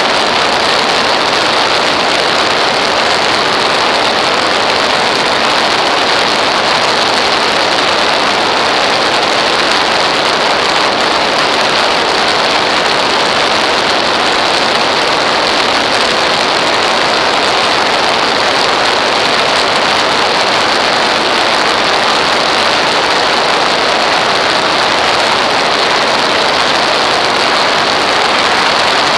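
Steady, loud rush of wind over a camera mounted on an aircraft's wing in flight, an even noise with no distinct engine note.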